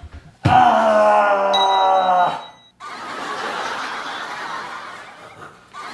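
A man's long, loud groan of exhaustion, 'uaaah', sliding slightly down in pitch, with a thin high tone sounding along with its second half. It is followed by heavy, breathy panting after the exertion.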